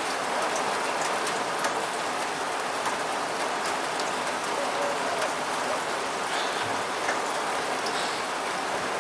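Steady rain falling and hitting a surface: an even hiss dotted with the ticks of single drops.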